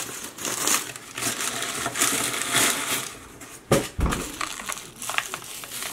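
Plastic bubble wrap crinkling and crackling as it is handled, with a single dull thump about two-thirds of the way through and a few sharp crackles after it.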